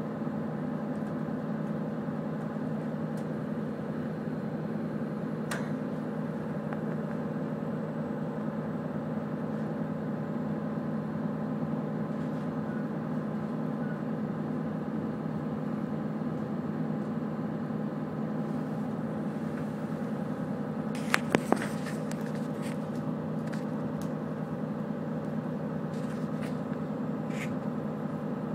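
Steady running noise of a moving train heard from inside the carriage, a low hum over an even rumble. A few sharp clacks, three loud ones close together about three-quarters of the way through.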